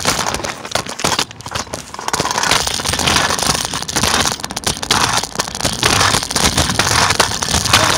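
Wind buffeting the microphone while riding a scooter, with wheel noise underneath: a loud, irregular crackling rush that dips briefly about a second in.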